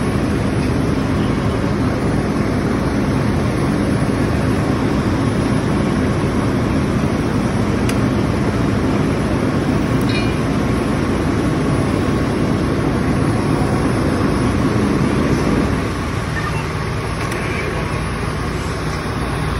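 Fire engine's diesel engine running steadily while it pumps water into the hose lines: a loud, even drone with a low hum, easing a little about sixteen seconds in.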